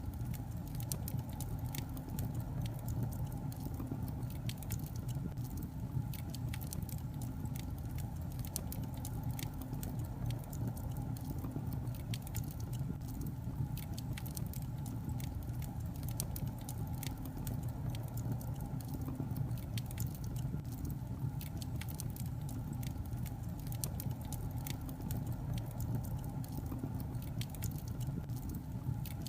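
Log fire crackling: irregular small pops and snaps over a steady low rumble of the flames.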